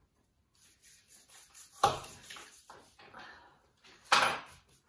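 Knife cutting shortbread cookies against a hard surface: two sharp knocks about two seconds apart, the second a little longer, with quieter scraping and rustling between.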